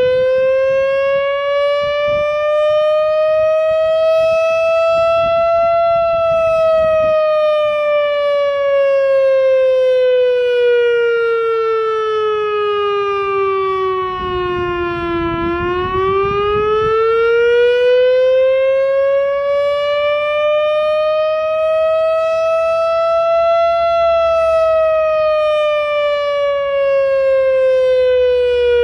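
Loudoun Masterblaster outdoor warning siren sounding a slow wail for its monthly test: a loud, rich tone that rises in pitch for about six seconds, falls for about nine, then rises and begins to fall again.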